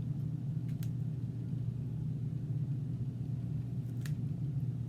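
Steady low mechanical hum, with a faint light click about a second in and another near the end.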